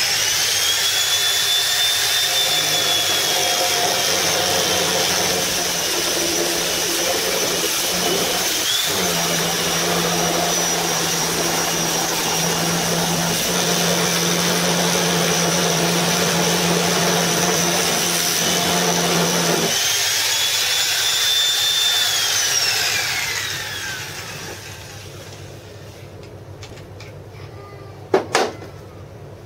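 Angle grinder fitted with a long spindle sanding drum running at full speed and sanding a wooden board, a steady high whine that sits a little lower in pitch while the drum is pressed into the wood. About twenty seconds in the pitch rises briefly, then the grinder is switched off and winds down, falling in pitch. A couple of sharp clicks come near the end.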